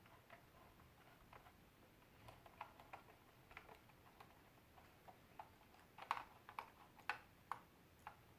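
Faint, irregular small plastic clicks and taps from a LEGO helicopter model being handled, a little louder and closer together in the second half.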